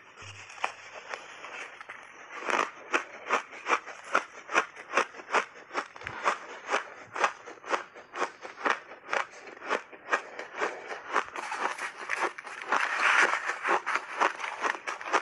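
Refrozen blended shaved ice being chewed in big bites: steady rhythmic crunching, about two to three crunches a second, with a louder, denser crunch near the end.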